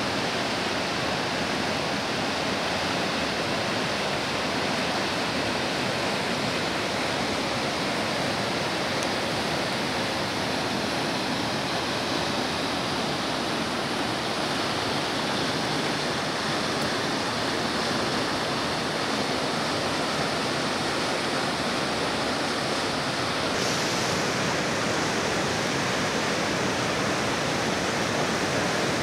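River rapids: fast water rushing and churning over rocks, a steady, unbroken rush.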